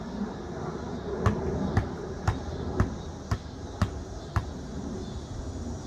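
A basketball dribbled on a concrete driveway: seven sharp bounces at an even pace of about two a second, starting about a second in and stopping a little past the middle.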